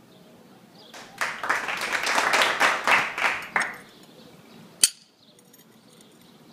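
Hammer striking a masonry chisel held on a concrete paver to score and split it: one sharp metallic strike about five seconds in. Before it, a burst of rapid clapping-like clatter lasting about two and a half seconds.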